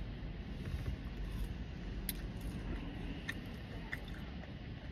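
Steady low hum of a car cabin, with a few faint clicks of a wooden spoon against a paper cup.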